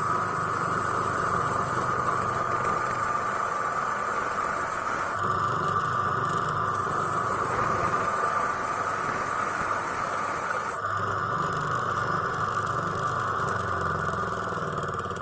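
Small power tool's grinding wheel running steadily with a high whine as it grinds down the metal head of a pin fastener in a power strip.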